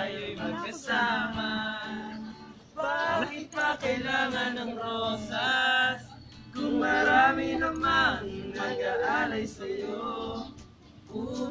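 A song playing, with sung vocals in phrases over the music.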